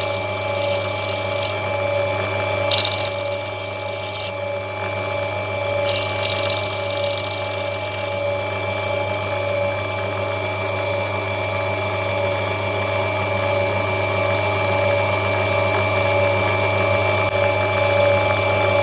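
An opal cutting machine's motor runs with a steady hum. In the first eight seconds there are three bursts of grinding hiss as an opal is pressed to the spinning wheel to roll a flaw out of its corner.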